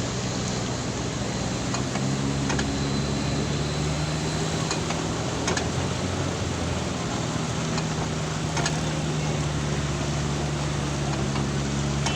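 Car engine running steadily, heard from inside the cabin as a low, even hum, with a few faint ticks now and then.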